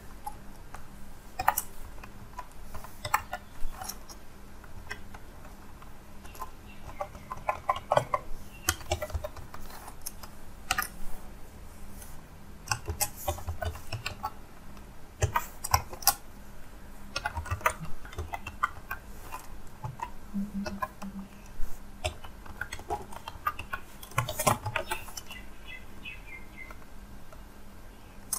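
Typing on a computer keyboard: irregular keystrokes in short runs with pauses between them.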